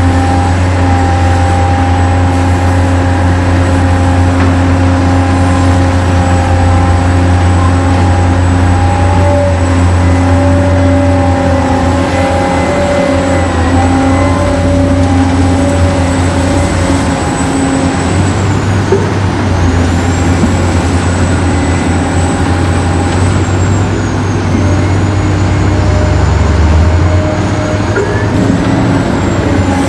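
Remote-control toy excavator and dump truck running: a steady engine-like drone with a high, thin whine that dips in pitch twice in the second half.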